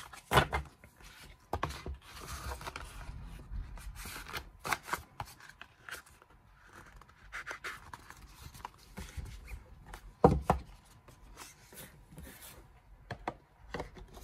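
Glossy photo cards and a card sleeve being handled: paper and card rustling, sliding and scraping as the cards are slid back in, with a few sharp knocks, the loudest about ten seconds in.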